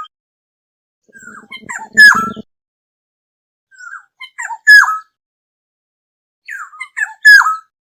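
Black-hooded oriole calling three times, about every three seconds: each call is a few short notes ending in a loud note that falls in pitch. A low buzz sounds under the first call.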